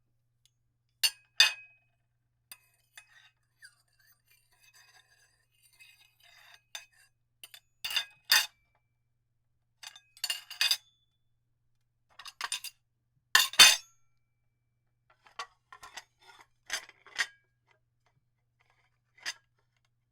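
Dishes clanking: plates, glasses and cutlery knocked and clinked together in scattered clusters of sharp clinks, with some light scraping and rattling between.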